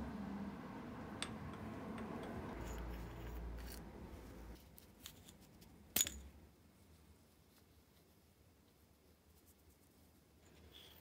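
Metal lathe running with a low hum that stops about four and a half seconds in, then one sharp metallic click about six seconds in as the part is handled at the chuck.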